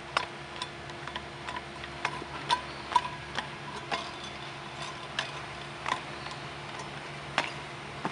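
A child's shoes landing on metal-capped playground stepping posts: light clinking taps, roughly two a second, some with a brief ring.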